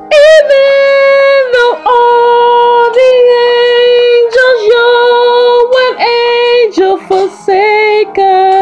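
A woman's voice singing long held notes without clear words, loud, wavering on the first note and then stepping between a few pitches, with shorter notes near the end.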